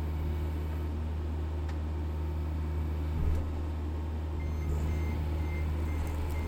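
John Deere 60G excavator's Yanmar diesel engine running steadily under work, with a short knock about three seconds in. Past the halfway mark a travel/backup alarm starts beeping, about two high beeps a second.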